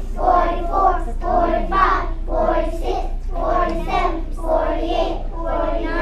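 A group of young children singing a song together in unison, in a steady rhythm.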